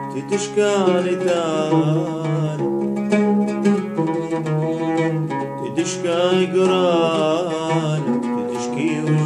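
An oud being plucked, with a man singing a wavering, ornamented melody over it.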